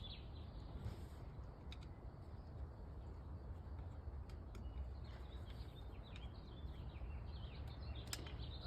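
A few faint clicks of a headlight part being pried loose by hand, over birds chirping and a steady low outdoor rumble.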